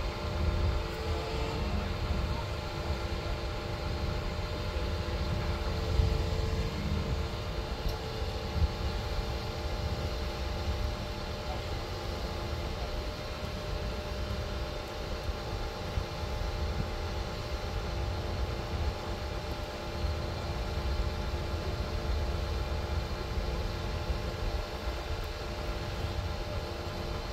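Diesel engine of heavy equipment, a boom-equipped wheel loader, running steadily while it holds a suspended load, a constant hum over a low rumble.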